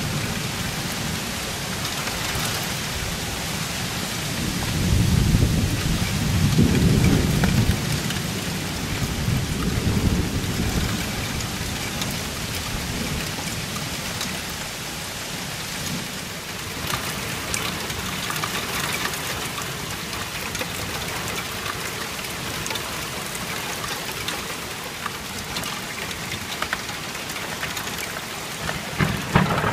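Heavy thunderstorm rain falling steadily, with rolling thunder rumbling about five to eight seconds in and again more faintly around ten seconds.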